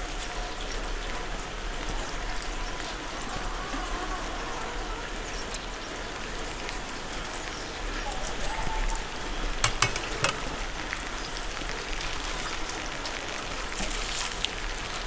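Steady hiss of light rain falling on wet paving and surfaces, with a few sharp clicks about ten seconds in.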